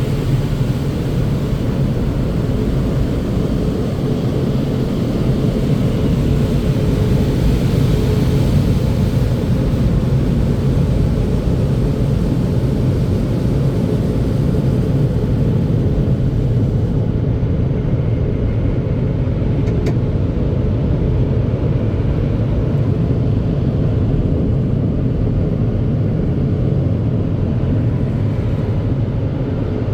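Car-wash machinery running with a steady, loud rumble and whir. The highest hiss thins out about seventeen seconds in.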